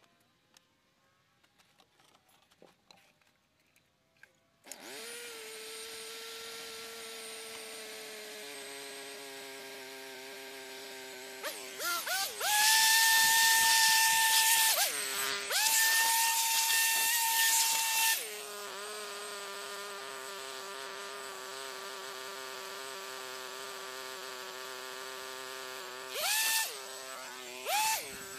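A power tool's electric motor starts about five seconds in and whines steadily. Twice it speeds up into a much louder, higher whine for a few seconds, then drops back, and it speeds up again briefly near the end.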